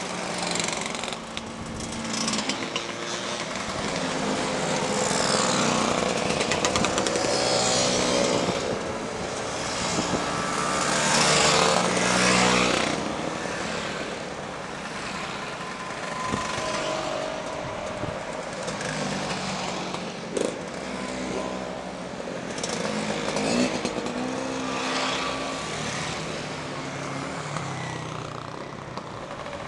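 A stream of motor scooters riding past one after another, their small engines buzzing, with the engine note swelling and fading as each group goes by.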